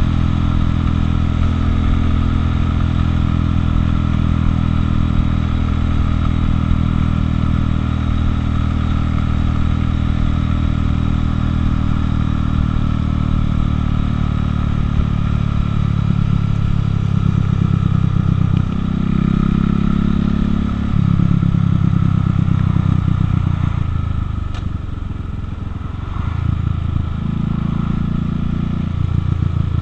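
Buell motorcycle engine running steadily at cruising speed. Over the last dozen seconds its pitch changes in steps several times, with a brief drop in level about three-quarters through, as the bike slows toward an intersection.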